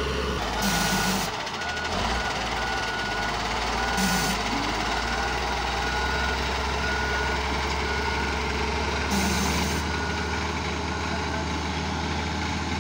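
Caterpillar 140G motor grader's diesel engine running while its reverse alarm beeps steadily, about once a second.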